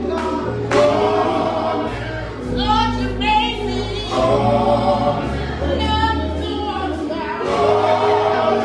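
Gospel vocal group singing live, several voices in harmony, over sustained low bass notes and sharp percussive hits about once a second.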